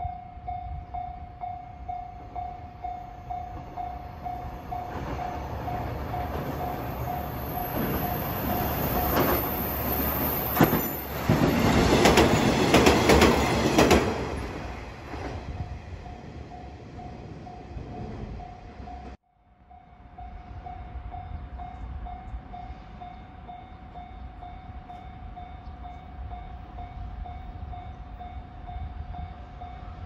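Japanese level-crossing warning bell ringing in a steady repeating pulse while a two-car KiHa 120 diesel railcar passes, loudest from about eleven to fourteen seconds in, with wheel clatter on the rail joints. After a sudden break near the two-thirds mark, the crossing bell rings on alone.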